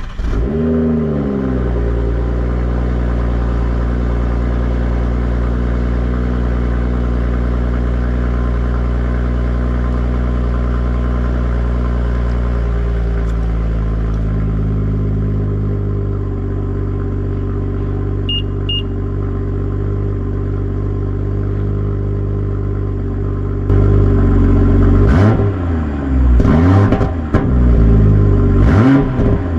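BMW M440i's 3.0-litre turbocharged straight-six on the stock exhaust, starting up with a brief flare in revs, then idling steadily; the idle settles lower about midway. Near the end it is revved several times in quick blips.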